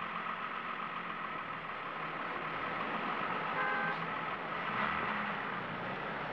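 Steady traffic noise of cars running close by, with a short car horn toot about three and a half seconds in.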